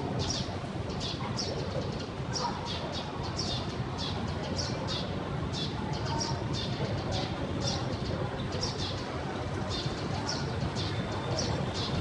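Street ambience: many birds chirping in short, quick calls, scattered irregularly over a steady low rumble of the street.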